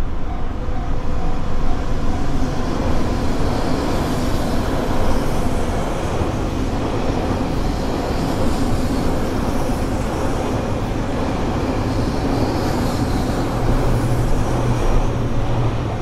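Electric train passing close by a level crossing: a steady, dense rush of wheels on rails and running gear, loud enough to drown out the crossing bell.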